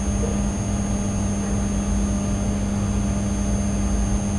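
Steady electrical hum with a low rumble and a faint high whine under it, unchanging throughout: the background noise of the recording microphone.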